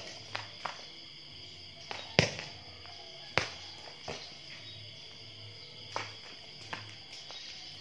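Sharp knocks of a small ball bouncing and being batted across hard paving tiles, about seven in all, the loudest a couple of seconds in, over a steady high drone.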